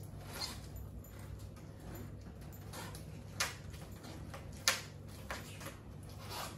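A few short, sharp clicks and knocks, the two loudest about three and a half and nearly five seconds in, over a low steady hum.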